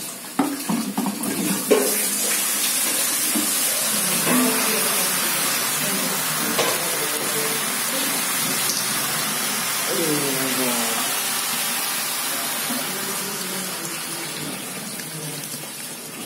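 Steady rushing noise that fades a little toward the end, with a few knocks in the first two seconds and a person's voice briefly around ten seconds in.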